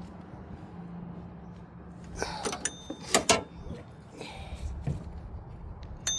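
Hand tools clinking and scraping on metal parts while a belt tensioner is being bolted in: a cluster of sharp clicks and knocks about halfway through, two of them ringing briefly, then a short scrape and one more click near the end.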